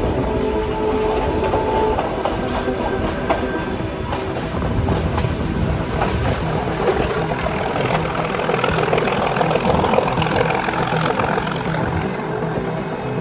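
Narrow-gauge mountain railway train running, its coaches rattling and wheels clicking over the rail joints, with a steady whine that stops about two seconds in.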